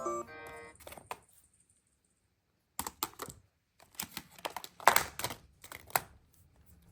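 A phone's chiming alarm melody cuts off just after the start; then irregular light clicks and clatter come in scattered groups, from smartphones being handled and knocking against each other in a basket.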